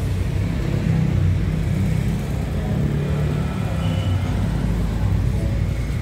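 Road traffic on a city street: vehicle engines running close by, a steady low rumble.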